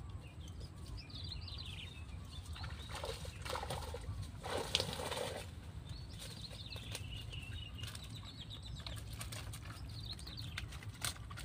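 Water splashing and pouring off a mesh keep net as it is hauled out of the canal, for about three seconds around the middle, with a few light knocks near the end. Small birds chirp on and off in the background over a steady low rumble.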